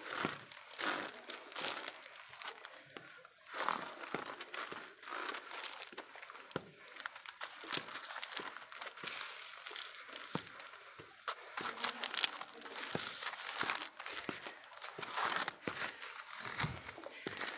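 Irregular rustling and crackling close to a handheld phone's microphone as the person holding it walks up a hillside path.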